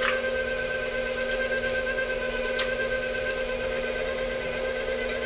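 KitchenAid stand mixer's motor running steadily, turning the meat grinder attachment as raw chicken is pushed through it. A single short click about two and a half seconds in.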